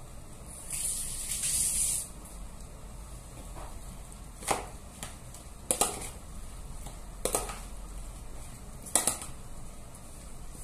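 Salt sprinkled onto a salad, an even hiss lasting just over a second. It is followed by several short clicks and rustles as the salad of lettuce, tomato and mango is mixed by hand in a plastic bowl.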